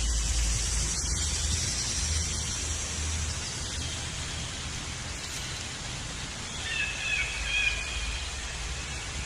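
Outdoor forest ambience: a steady high hiss over a low rumble, with a bird giving one wavering call of about a second some seven seconds in.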